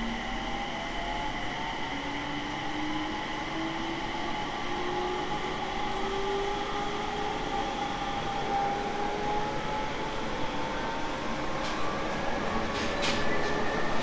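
Running sound inside a JR East 701 series 1500-subseries electric train: the traction motor and inverter whine climbs slowly in pitch as the train gathers speed, over steady wheel and rail noise. A few sharp clicks come near the end.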